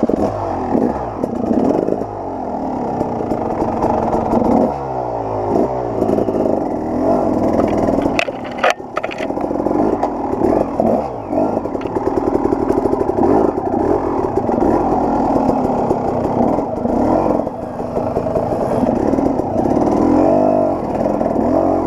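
KTM 300 XC-W two-stroke dirt bike engine revving up and down under load as it climbs a steep, rocky trail. A clatter of sharp knocks comes about eight to nine seconds in.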